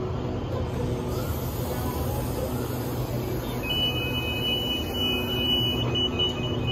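Passenger train coaches rolling slowly past along the platform, with a steady low rumble and engine hum. From about halfway, a steady high-pitched two-note tone joins in.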